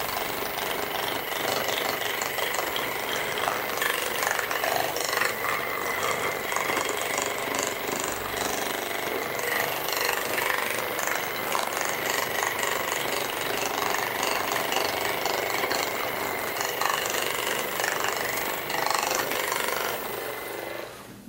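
Percussive massage gun running against the body, its motor giving a steady high whine under rapid pulsing strikes. It stops shortly before the end.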